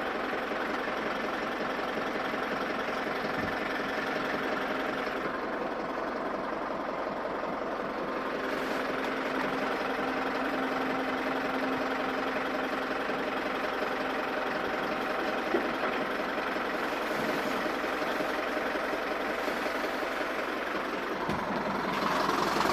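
A farm machine's engine running steadily at an even speed, with a constant hum, growing a little louder near the end.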